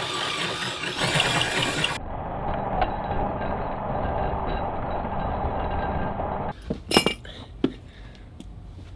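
Drill boring out the hole in a small steel scissor-mount clamp to take a 15 mm rod: a steady grinding whir of the bit cutting metal, which changes character abruptly about two seconds in. Near the end it is quieter, with two sharp metallic clinks.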